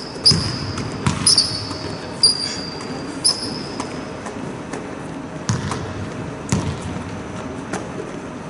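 Basketballs bouncing on a gym floor, with four sharp, high sneaker squeaks on the court in the first few seconds.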